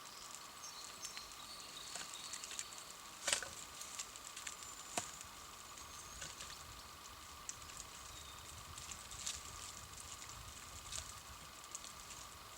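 Wood campfire crackling in the frost: scattered sharp snaps and pops, the loudest about three seconds in and another about five seconds in, over a faint low rumble.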